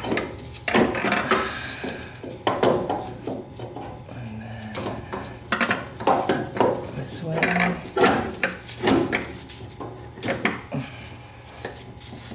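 Irregular metallic clanks, knocks and scrapes as a starter motor is twisted and worked out of a tight space, bumping against the engine, frame and brake lines.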